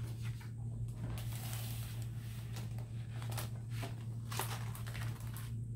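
Paper rustling and soft handling clicks as a page of a hardcover picture book is turned, loudest for about a second early on, over a steady low hum.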